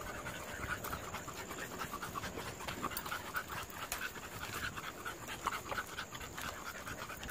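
American bully puppy panting as it walks on the leash, short breathy pants at about three a second.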